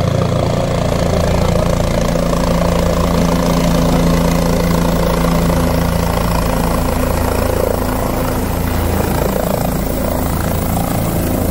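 Helicopter running loud and steady as it flies in low and descends to land on a helipad.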